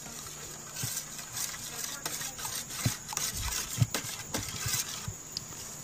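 A spoon stirring thick ketchup-based barbecue sauce in a metal bowl: irregular scraping and knocking strokes against the bowl, starting about a second in.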